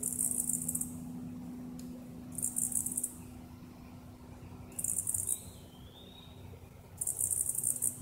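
An insect's high, rapid buzzing trill in short bursts of under a second, repeating four times about every two and a half seconds.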